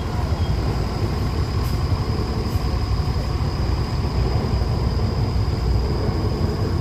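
Mercedes-Benz coach's diesel engine running steadily as the bus crawls forward up a rutted mud-and-gravel slope, with a steady high whine over the low rumble.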